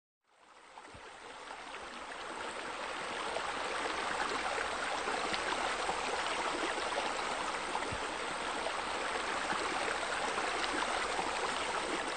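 Steady rush of running, splashing water that fades in over the first few seconds, like water spilling from a raised wall into a swimming pool.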